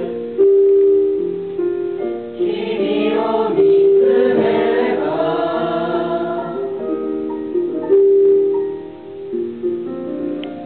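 Mixed group of school students singing a song together in chorus, holding long notes that move in steps, the singing growing quieter near the end as the song draws to a close.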